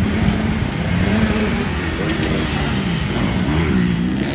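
Dirt bike engines revving, the pitch rising and falling repeatedly as the throttle is worked.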